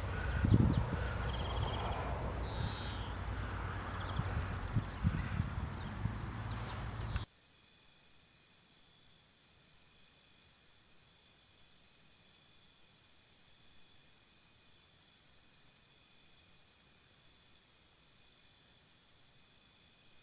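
Field insects chirping in high, pulsing trills. For about the first seven seconds the ambience is louder, with a steady high whine and a few low thumps; then it cuts suddenly to a quieter insect trill that swells and fades in rapid pulses.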